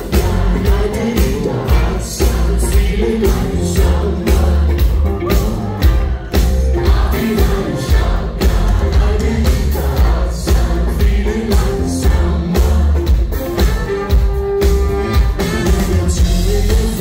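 Live pop-rock band playing with drums, bass, electric guitars and keyboard, with singing over a steady beat.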